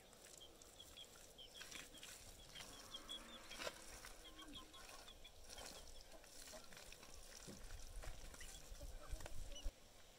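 Faint wet rubbing and scraping of bare hands smoothing a cow-dung and soil plaster. A small bird chirps in a quick series of short high notes through the first half.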